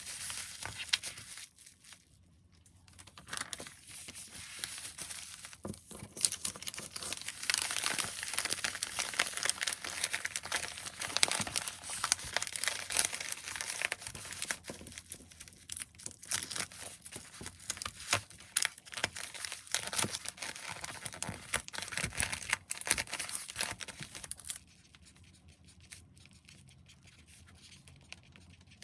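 Plastic and paper packaging crinkling and tearing while items are wrapped by hand, a dense stream of rustles and small crackles that stops suddenly near the end.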